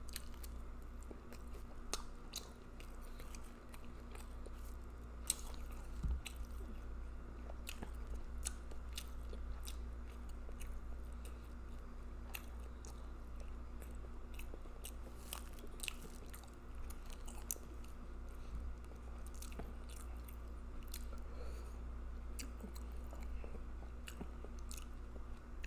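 Close-miked wet chewing and mouth smacking of spicy seafood boil, an irregular run of short clicks and smacks over a steady low hum.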